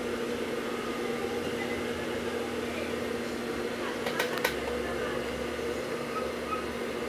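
Steady electric motor hum, even and unchanging, with two light clicks a fraction of a second apart about halfway through.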